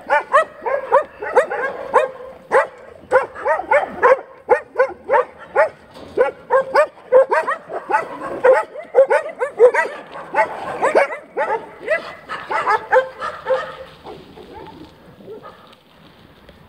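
Several dogs barking in a rapid, overlapping string, two or three barks a second, dying away near the end.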